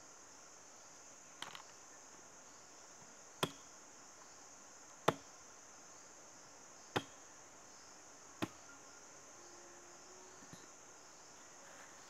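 A machete chopping down onto a wooden log five times, sharp single knocks about every one and a half to two seconds, over a steady high drone of insects.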